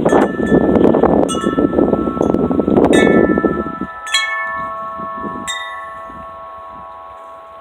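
Wind chimes ringing in a gust: about six strikes over the first five and a half seconds, their clear notes ringing on and slowly fading. A loud rush of wind on the microphone covers the first half.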